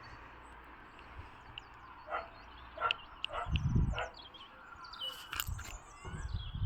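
A dog barking repeatedly, with short barks spaced about a second or less apart, and some faint high bird chirps among them.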